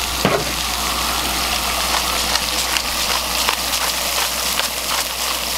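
Asparagus sizzling in olive oil in a cast-iron skillet on a propane camp stove: a steady sizzle with scattered crackles.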